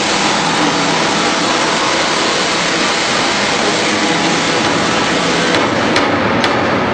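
Optical color sorter running on sunflower seeds: a steady, dense rushing noise of seeds streaming through the machine. A few sharp clicks come about five and a half to six and a half seconds in.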